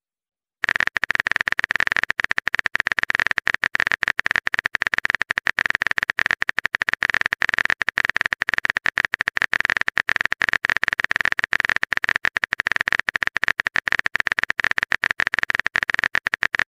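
A steady, dense crackle of very rapid clicks with a hissing tone, starting about half a second in and cutting off suddenly near the end.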